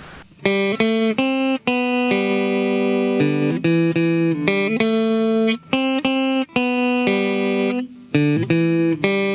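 Epiphone Les Paul SL electric guitar on its neck pickup through a clean amp, playing a run of single picked notes, one after another.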